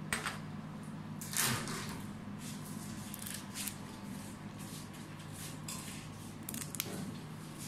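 Faint scattered clicks and a short swish of things being handled, over a steady low hum.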